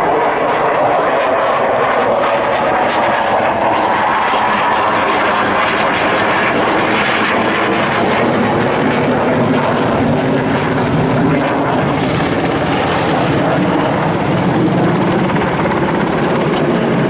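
Military helicopter flying over the airfield, a loud steady drone of rotor and turbine engines.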